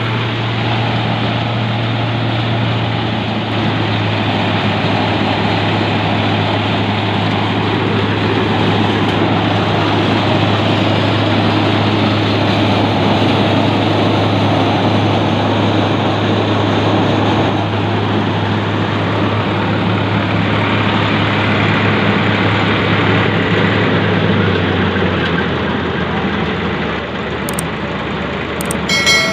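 Massey Ferguson 260 turbo diesel tractor engine running steadily. Its note steps down a little about three seconds in and again near the end.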